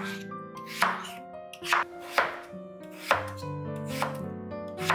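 A kitchen knife chopping peeled raw potatoes on a wooden cutting board, with about seven sharp cuts at uneven intervals as the blade strikes the board. Soft music plays underneath.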